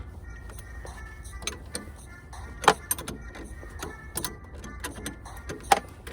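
Scattered sharp metal clicks and taps from hand tools working on a battery terminal, with two louder clicks, one near the middle and one near the end, over a low steady hum.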